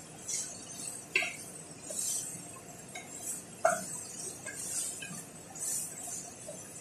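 A spoon stirring in a cooking pot on the stove: soft scraping strokes about once a second, with two sharp clinks of the spoon against the pot, the louder one near the middle.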